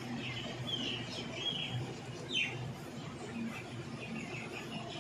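Birds chirping in short calls, with one louder, quickly falling call about two and a half seconds in, over a low steady background hum.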